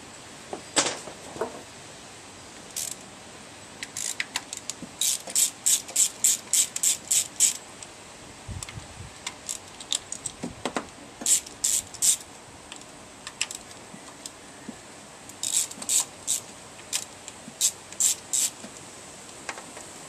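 Hand ratchet wrench clicking in three quick runs of about four clicks a second, with a few knocks of tools on metal, as the ignition coil hold-down bolts on a 1.5-litre Toyota engine are turned out with the engine off.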